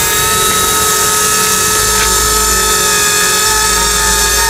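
Electric motors and rotors of a C187 radio-controlled scale helicopter whining steadily in low flight, a high, even whine with several pitches held together.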